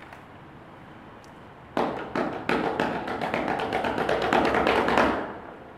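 A sudden flurry of rapid metallic tapping and knocking on metal cooking pots, starting about two seconds in and growing denser, with a ringing tone under it, then fading out after about three and a half seconds.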